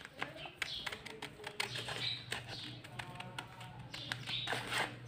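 Scissors cutting through a sheet of paper: a quick, irregular run of snipping clicks.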